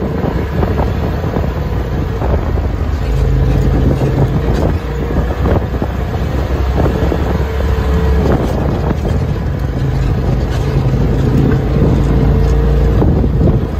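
Polaris RZR side-by-side's engine running steadily while driving on a trail, with wind buffeting the microphone.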